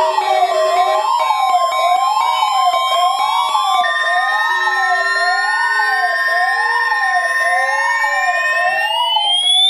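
Several electronic siren tones layered together: a wail rising and falling about once a second over steady alarm tones, with slow rising glides joining partway through. The steady tones cut off near the end.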